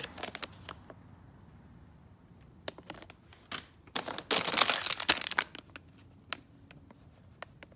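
Packaging being handled during an unboxing: crinkling and rustling with scattered small clicks. The loudest rustle comes about four to five and a half seconds in.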